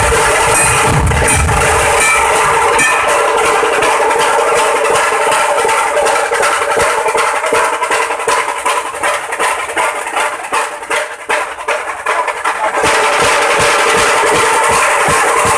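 Dhol tasha ensemble playing: rapid, sharp tasha strokes over deep dhol beats. The deep dhol beats drop out about two seconds in, leaving the tashas pulsing in waves, and the full ensemble comes back in near the end.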